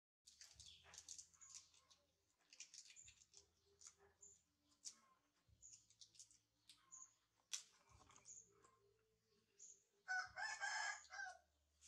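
A rooster crows once, about ten seconds in, the loudest sound here. Before it, faint rustling and small clicks, with short high chirps now and then.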